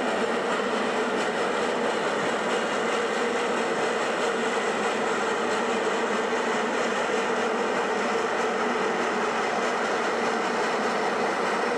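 Rack-railway steam locomotive climbing a steep grade as it approaches, its working noise steady and even.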